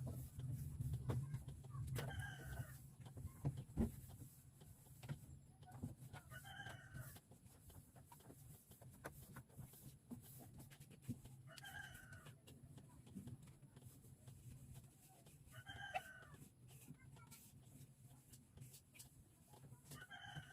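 A chicken calling, faint, about five calls of roughly a second each, a few seconds apart, over scattered small clicks and knocks.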